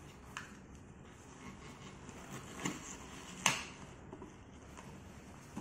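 A few light clicks and knocks of handling as a ventilator's pleated bellows is worked onto its mounting base, the loudest about three and a half seconds in.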